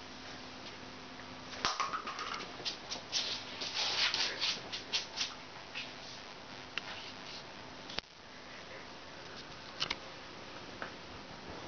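A cat at play: busy scratchy rustling and light clicks for the first several seconds, then only a few scattered taps.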